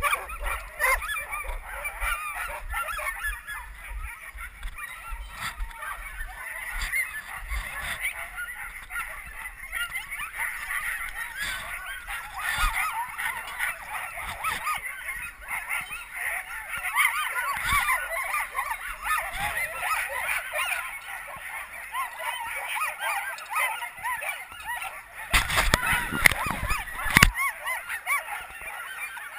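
A yard full of sled dogs, huskies on the gangline and on their kennel chains, yelping and howling together in an excited chorus, the eager noise of a team waiting to run. A couple of knocks sound near the end.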